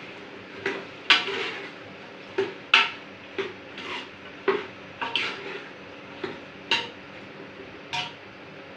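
Metal spoon stirring chicken keema in a metal pot, clinking and scraping against the pot's sides and rim about once or twice a second at an uneven pace.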